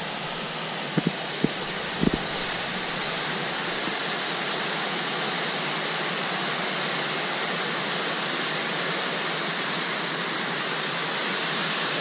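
Water spilling over a small artificial weir waterfall into the pool below, a steady even rushing. A few short knocks sound in the first two seconds.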